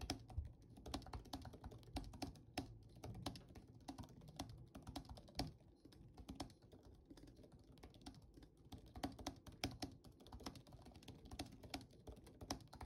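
Fast touch-typing on an M1 MacBook Air's built-in scissor-switch keyboard: a continuous stream of soft, quiet key clicks.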